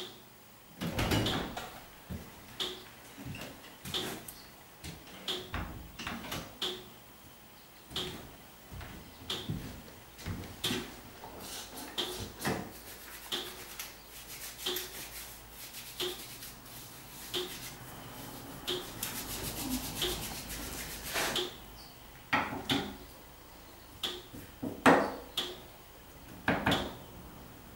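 Hand-washing at a stainless steel sink: rubbing and handling sounds, a tap running for a couple of seconds past the middle, then several louder knocks and clatters of things set down on the counter. A faint short click repeats very regularly, about once every second and a third.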